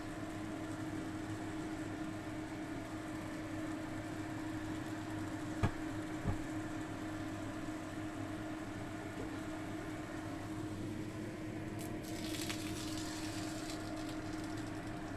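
Spaghetti with mussels and white fish simmering in a pan on the stove, a faint crackle over a steady low hum. Two sharp clicks come about five and a half and six seconds in, and a brighter hiss rises for a couple of seconds near the end.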